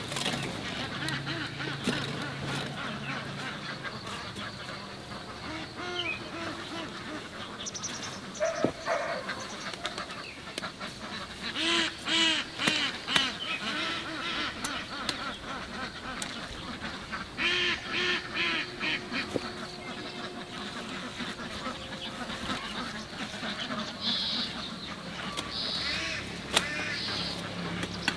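Farm ducks quacking in quick runs of short calls, with two loud bouts a few seconds apart partway through and fainter calls scattered around them.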